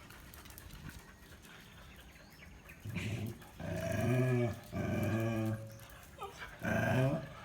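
A dog growling: a run of low, drawn-out growls, about four of them, starting about three seconds in.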